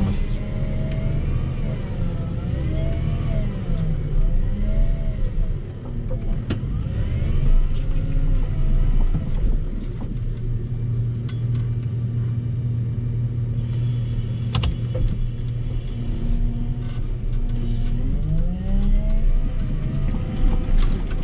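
Volvo L60H wheel loader's diesel engine heard from inside the cab while pushing snow, its revs rising and falling repeatedly. It holds steady for several seconds in the middle, then climbs again near the end as the loader arms lift.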